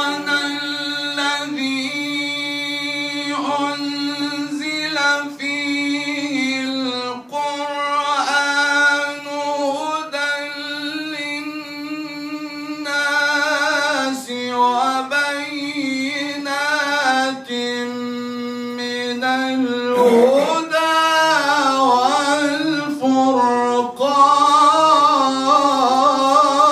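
A man reciting the Quran in a melodic chant into a microphone: long held notes with ornamented, wavering turns, broken by short pauses for breath about seven and twenty seconds in.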